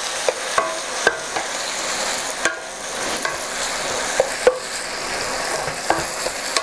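Chicken and ginger sizzling in sauce in a wok while a wooden spatula stirs and tosses them, knocking against the pan a dozen or so times with short ringing clicks over a steady sizzle.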